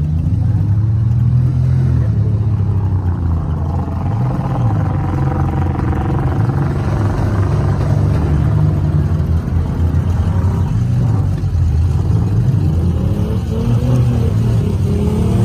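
Demolition-derby minivan engines running and revving together, a heavy continuous rumble whose pitch rises and falls as drivers rev.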